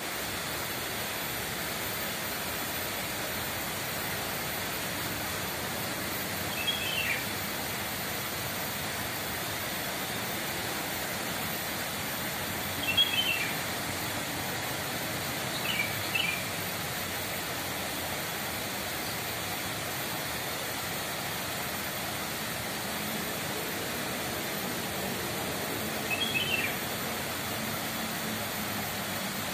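A songbird giving a short, falling call four times, well spaced, over a steady outdoor hiss.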